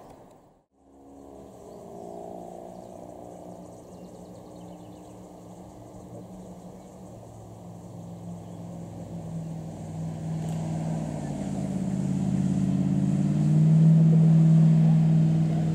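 Jet boat engine droning on the river below, growing steadily louder as the boat approaches and loudest near the end, after a brief dropout in the sound about half a second in.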